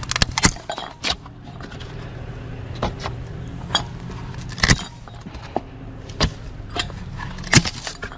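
Irregular knocks, clicks and clatter of hard plastic and metal items being shifted about in a trash pile as a fan is dug out, with sharper bangs about a third of the way in and near the end, over a steady low engine hum.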